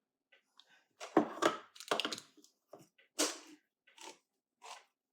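A small metal can of cocktail shrimp being opened and handled: several short, irregular bursts of scraping and cracking noise.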